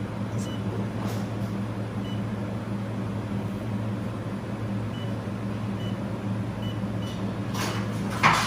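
Handheld fiber laser welding machine running, with its cooling fans and chiller giving a steady low hum, a few faint short high blips, and a brief hiss or rustle near the end.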